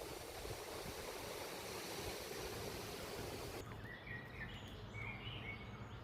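Steady rushing outdoor noise that cuts off suddenly about three and a half seconds in. After the cut there is a quieter background with a few short bird chirps.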